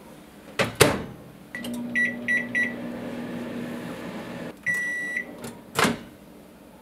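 Samsung microwave oven: the door shuts with two knocks, four short keypad beeps start it, and it runs with a steady low hum. The hum stops and a longer end-of-cycle beep sounds, then the door latch clacks open near the end.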